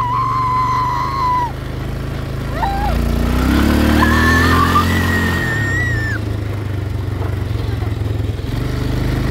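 Four-wheeler (ATV) engine running steadily, then rising in pitch as it speeds up about three seconds in. A girl's long high-pitched squeals sound over it near the start and again in the middle.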